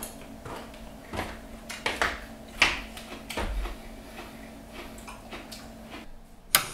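Quiet room with a faint steady hum, scattered small knocks and rustles of someone shifting about, and a sharp click near the end.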